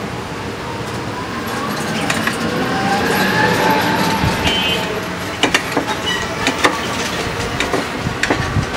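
Steady street traffic noise, with a few sharp clicks of a knife against a ceramic plate as a tomato is sliced.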